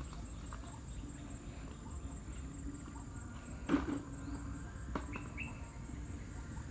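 High-pitched chirring of insects, pulsing steadily a little more than once a second, with scattered small ticks and rustles and one thump about halfway through.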